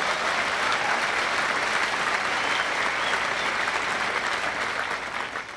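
Audience applauding steadily, dying away at the very end.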